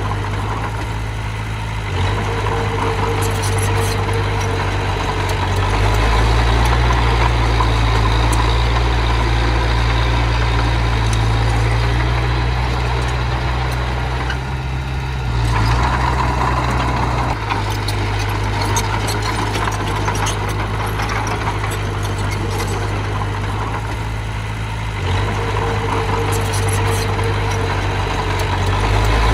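Diesel engine of a small earthmoving machine running steadily, its note growing heavier about six seconds in and easing off again around the middle as the load changes.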